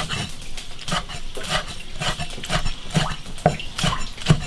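Cleaver chopping pickled chilies on a wooden chopping block: quick, even chops about three a second, each a short knock of the blade on the board.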